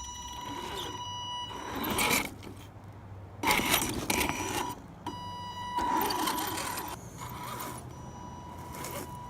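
Electric 1/10-scale Axial SCX10 Deadbolt rock crawler driving on its new all-steel transmission gears: a steady high whine from the motor and drivetrain, with three louder surges of throttle.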